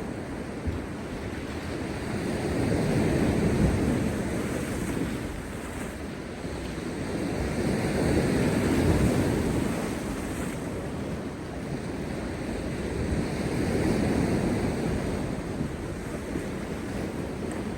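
Heavy post-storm sea waves crashing and washing over rocks. The surf swells and falls three times, about five seconds apart.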